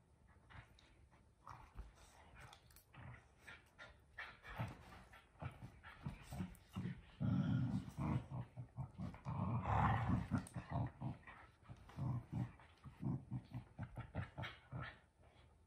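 Two dogs growling in play while tugging at a furry toy: a run of short growls, with two longer, louder ones about seven and ten seconds in.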